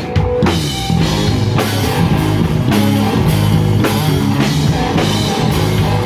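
Rock band playing live and loud: two electric guitars, bass guitar and drum kit, with a steady driving beat and a repeating bass line.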